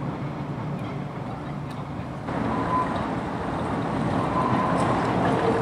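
Vintage electric tramcar running along the rails toward the listener, getting louder over the last few seconds, with a steady whine coming in near the end.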